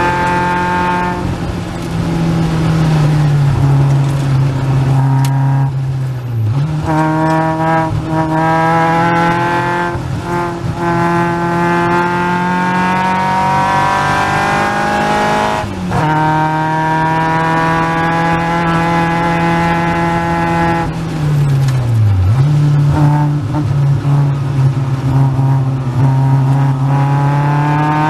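Caterham Seven's 2.3-litre Ford Duratec four-cylinder engine running hard at racing speed, its note climbing as it pulls through the revs. Three times the pitch drops sharply for a moment and comes back up, as the throttle is lifted or a gear is changed.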